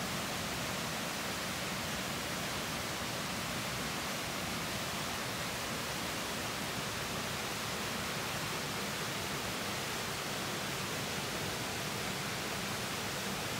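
Flowing water rushing steadily and evenly, with no change throughout.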